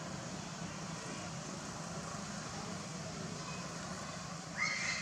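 Steady low mechanical hum over outdoor background noise. About four and a half seconds in, a brief high-pitched squeak.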